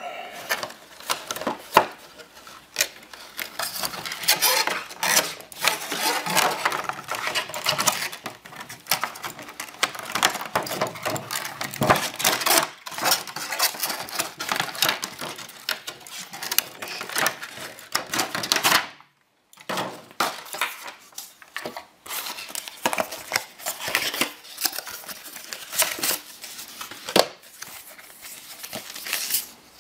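Cardboard and plastic packaging being handled and opened: steady rustling and scraping with many small clicks and knocks, broken by a short silent gap about two thirds of the way in.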